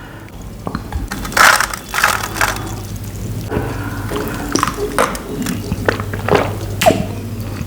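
A man gulping a cold glass of Thums Up cola, swallow after swallow.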